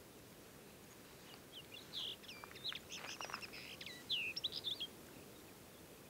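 Thekla lark singing one song phrase of quick, varied whistled notes that slur up and down, starting about a second in and lasting about three and a half seconds.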